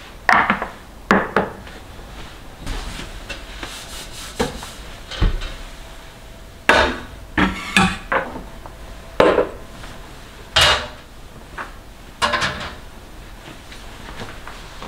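Kitchen items being picked up and set down on a stone countertop: about a dozen separate knocks and clatters of wood and dishware, the loudest a little after halfway.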